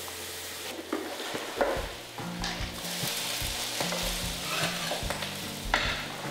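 Metal wok spatula scraping and knocking against a large iron wok as a cooked fish is lifted out, with several sharp clinks over the steady hiss of the hot, bubbling wok.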